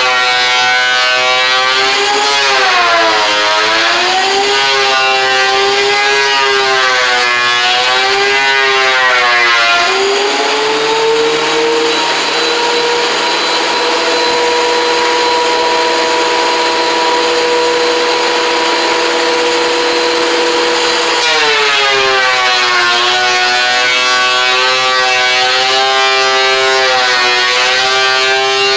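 Power woodworking machine's electric motor whining loudly under load, its pitch sagging and recovering repeatedly as the stock is fed through, steady for a stretch in the middle.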